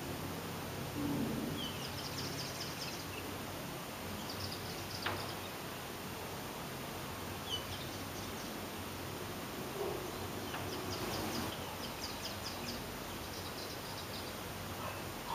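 Faint room tone: a steady low hiss, with soft high chirps and short quick runs of ticks every few seconds.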